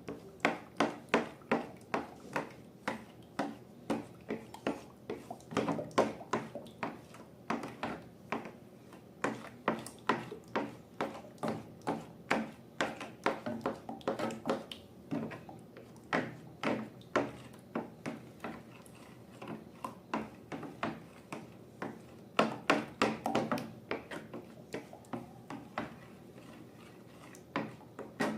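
Slime being worked by hand or with a tool, a long uneven run of short sticky clicks and taps, a few a second.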